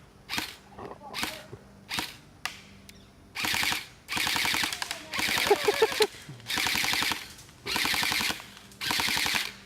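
Airsoft rifle firing at a person: three single shots, then six bursts of rapid automatic fire in quick succession.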